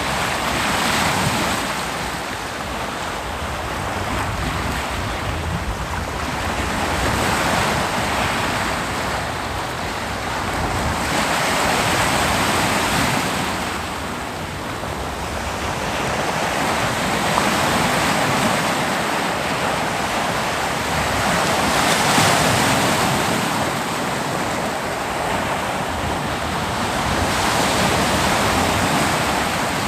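Ocean surf breaking on a beach in a continuous wash, swelling and easing as each wave rolls in about every five seconds.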